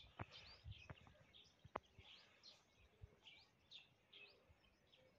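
Faint chirping of small birds, many short calls overlapping at a few a second, with a couple of sharp clicks, one about two seconds in.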